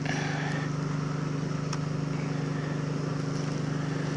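Site electricity generators running with a steady low drone.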